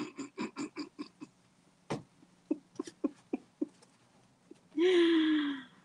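A woman laughing: a quick run of short chuckles, a few scattered ones, then a drawn-out high sound that falls slightly in pitch near the end.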